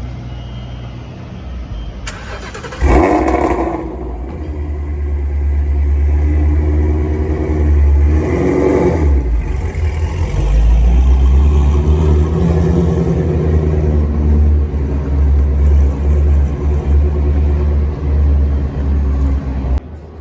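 Shelby GT350R's heavily tuned 5.2-litre flat-plane-crank V8 revving hard. It jumps suddenly louder about three seconds in, climbs in pitch around the middle, then holds a long loud, wavering run before dropping away at the end.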